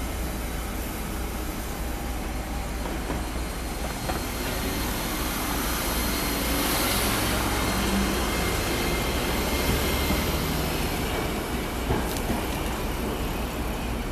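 Iyo Railway Moha 2100 low-floor tram pulling away and passing close by on street track. Its running noise grows louder to a peak about seven to ten seconds in, then eases as it moves off. A sharp click comes near the end.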